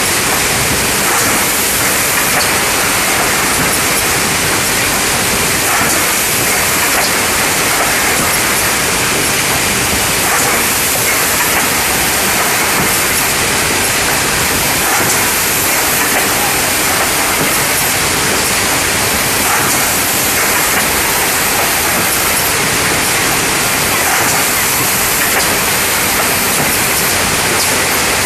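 Wrap-around case packer and its can infeed conveyor running: a steady, loud rush of machine noise that does not let up, with faint clicks scattered through it.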